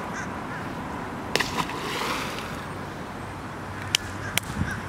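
A snakehead dropped back into a canal, splashing into the water about a second and a half in. Two sharp clicks come near the end.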